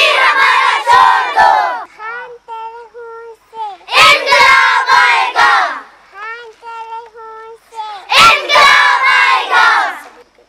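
Children chanting a political slogan in call-and-response: a single high voice calls out a held, sung line, and the group answers with a loud unison shout. The group shout comes three times, about four seconds apart.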